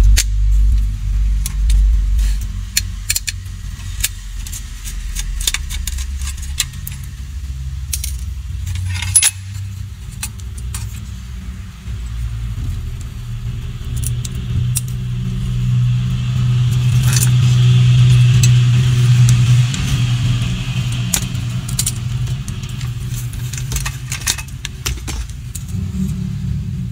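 Screwdriver and small metal screws clicking and rattling against a plastic power-supply case as its circuit board is unscrewed and lifted out. One sharp click about nine seconds in is the loudest. A steady low rumble runs underneath and swells in the middle.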